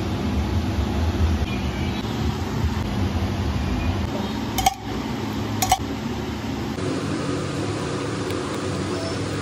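Steady low rumble of street-stall background noise, with two sharp clicks about a second apart near the middle.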